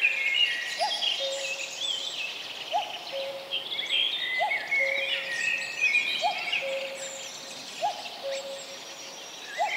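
Several birds singing and calling together, with many high chirps and trills overlapping. Under them a lower call repeats six times, about every one and a half to two seconds: a short rising note, then a steady lower note.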